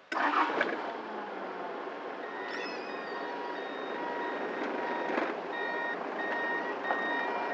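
A truck's engine running, heard from inside the cab, with its reversing alarm beeping steadily from about two seconds in as the truck backs up.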